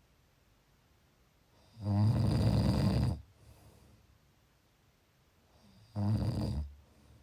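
A sleeping person snoring: a long snore of about a second and a half near two seconds in, then a shorter one about six seconds in, with quiet breathing between.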